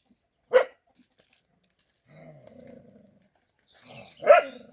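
A dog barking: two short, loud barks about four seconds apart, with a quieter, lower sound in between.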